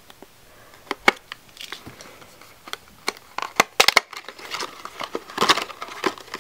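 Packaging of a cosmetic cheek cushion being opened by hand: crinkling and tearing with scattered sharp clicks and taps, busiest about five seconds in.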